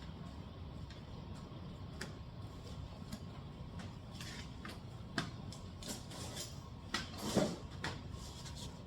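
Scattered clicks and knocks of plastic parts being handled as push fasteners are popped into a car's underbody splash shield. The loudest clatter comes about seven and a half seconds in, over a steady low hum.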